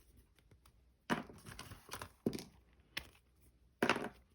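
Paper and plastic packaging rustling and crinkling in short bursts, with a few light clicks, as small merchandise items are handled.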